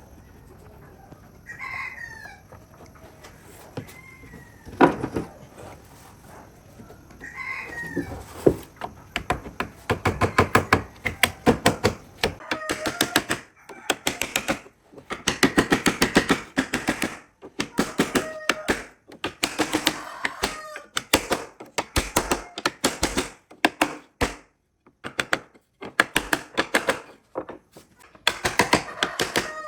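A rooster crows and chickens cluck in the background. From about nine seconds in, a fast run of sharp taps or knocks starts and comes in bursts with brief pauses, louder than the birds.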